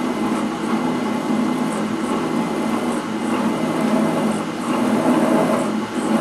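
Drill press running steadily while a center drill cuts a centre hole into a metal block.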